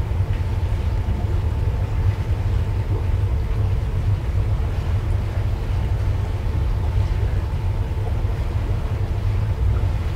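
Steady low rumble of the MV Seaventure under way at slow cruising speed, with a faint steady machinery hum over it.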